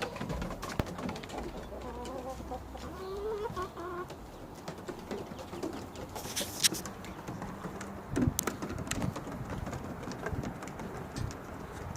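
Backyard hens clucking as they feed on chopped greens, with short calls in the first few seconds and scattered light clicks and taps throughout.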